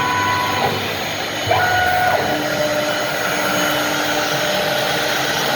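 CNC router running while cutting wood: a steady, loud whirring noise with a constant high whine. Shorter tones step to a new pitch about a second and a half in, then settle into one steady lower tone.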